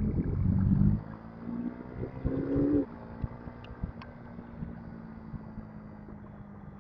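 Motorcycle riding in slow traffic, its engine a steady low hum under wind noise on the microphone, with a loud rush of wind and engine in the first second and a short pitched tone about two seconds in.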